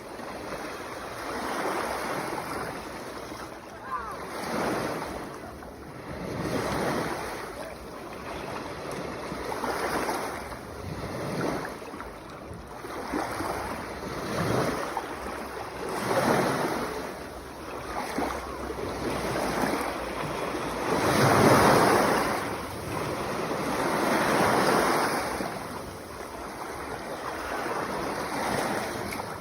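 Sea waves washing in one after another, the hiss swelling and falling back every couple of seconds, with one louder wave about three quarters of the way through.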